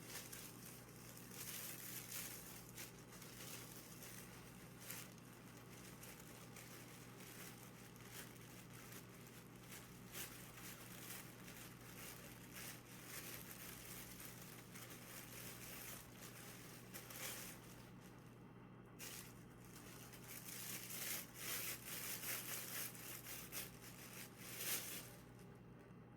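Faint, irregular rustling and crinkling noises that come thicker and louder near the end, over a steady low hum.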